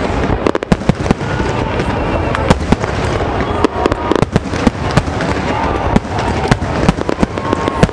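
An aerial fireworks display: a dense, irregular barrage of shell bursts, several sharp bangs a second over a steady rumble, with voices from the watching crowd underneath.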